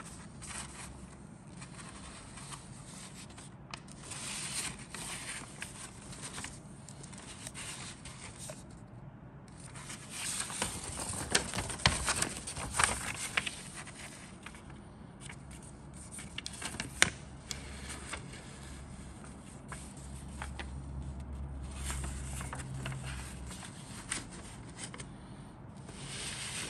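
Paper instruction sheet rustling and crinkling as it is unfolded and handled, in irregular bursts with a few sharp crackles.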